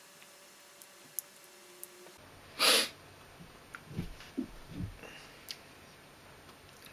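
A man tasting a mouthful of sauce: a few faint mouth clicks, then one sharp, loud breath through the nose, like a snort, about two and a half seconds in, followed by soft lip and mouth sounds.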